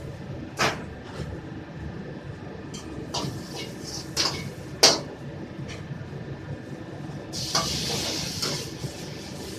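Metal ladle knocking against a steel wok several times during stir-frying, over a steady low rumble. About seven seconds in comes a loud sizzling hiss lasting about two seconds, as food or liquid hits the hot wok.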